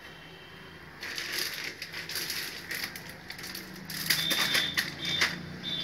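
Crackling and crinkling of packaging being handled, with many sharp clicks and small knocks. A thin, steady high tone sounds in the last couple of seconds.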